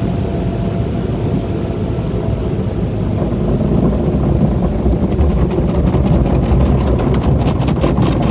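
Conveyor car wash machinery running as a steady rumble, heard from inside the car. From about five seconds in, the strips of a spinning cloth wash brush start slapping rapidly against the car.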